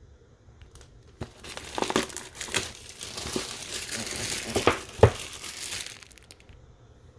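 Plastic wrapping being torn and crumpled off a keyboard box, a dense crinkling with many crackles that starts about a second in and stops about six seconds in. There is a sharp snap near five seconds.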